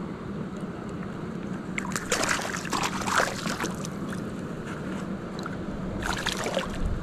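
Steady rushing water with a low hum underneath. Short bursts of splashing come about two seconds in and again near the end.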